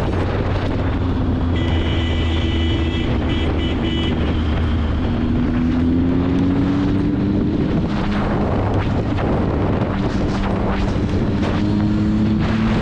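Motorcycle engine running on the road with wind buffeting the microphone, its pitch slowly rising and easing as the throttle changes. A high steady tone sounds for about two and a half seconds near the start.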